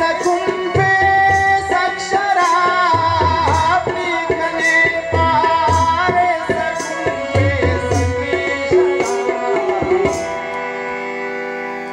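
Instrumental music: a wavering, ornamented melody line over regular hand-drum strokes. Near the end the drumming drops away and a steady held note remains.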